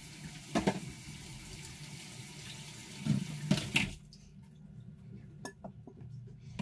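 Kitchen tap running into a sink, with a few knocks, then turned off about four seconds in.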